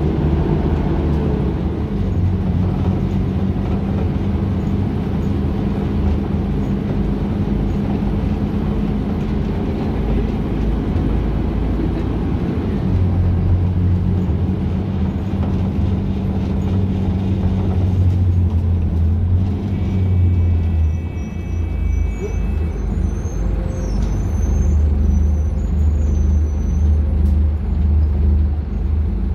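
Scania K250UB city bus's diesel engine running under way, heard from inside the passenger cabin, with road and body rumble. The engine note steps up and down as the bus changes gear and speed, and dies down for a few seconds about two-thirds of the way through, when a brief high tone sounds.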